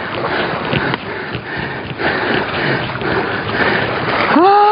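Seawater sloshing around the rocks and around a landing net as it is drawn out of the sea, with heavy breathing. Near the end a man lets out a drawn-out groan that rises in pitch.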